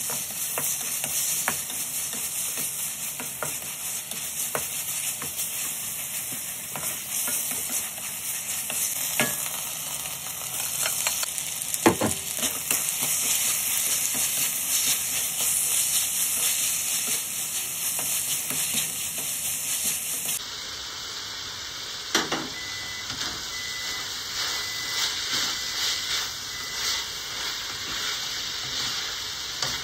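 Beef and sliced bitter melon sizzling in a hot wok while a cooking utensil stirs and scrapes through them, with scattered clicks and a few sharper knocks against the pan.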